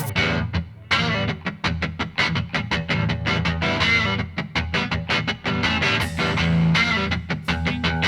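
Music: a guitar-driven rock track with a fast, steady beat over bass.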